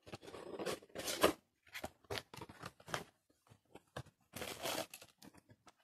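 A small product box being opened and its packaging handled: a string of irregular scrapes, taps and rustles, with a longer rustle about a second in and another past the four-second mark.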